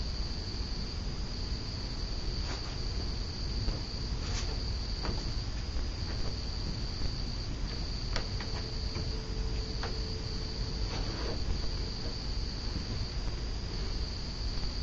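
Crickets chirring in a steady, continuous high-pitched trill over a low steady rumble, with a few faint clicks and a brief faint hum partway through.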